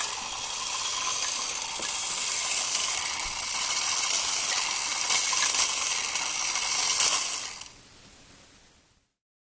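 Clockwork wind-up mechanism of a 1950s Yoshiya tin Space Dog robot toy running: a steady, high-pitched whirring rattle of spring-driven gears as the toy walks. It dies away near the end.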